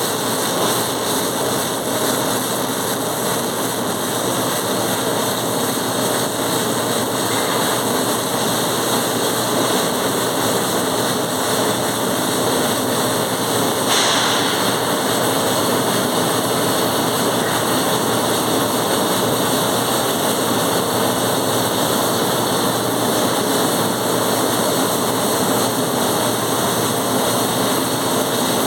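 Welding noise: a steady, unbroken hiss, with a brief sharper sound about fourteen seconds in.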